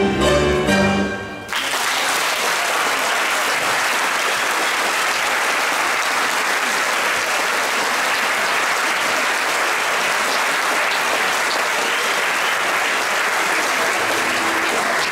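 A live band of acoustic guitars and violin finishes its piece about a second and a half in. The audience then applauds steadily.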